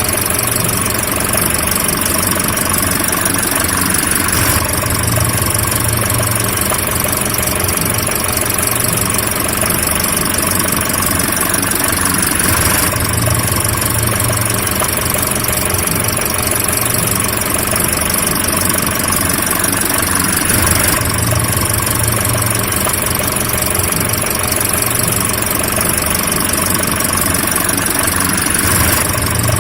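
Car engine running steadily at an even speed, with no revving. The same short stretch comes round again about every eight seconds, as in a looped recording.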